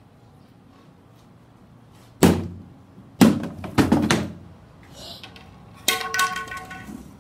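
A stick whacking a cardboard box: one hard hit about two seconds in, then three more in quick succession about a second later. A further thump about six seconds in is followed by a brief high-pitched sound.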